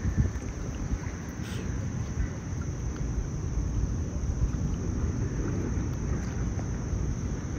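Outdoor pond ambience: wind rumbling on the microphone, with a steady high insect trill, like crickets, behind it and a faint brief sound about a second and a half in.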